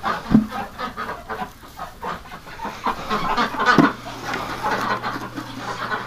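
Domestic ducks calling with short, irregular quacks and murmurs, over straw rustling as eggs are picked out of a nest box. Two sharp thumps stand out, one just after the start and one about four seconds in.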